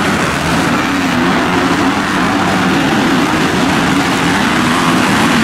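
Several motocross dirt bikes racing, their engines running together and rising and falling in pitch as the riders work the throttles around the track.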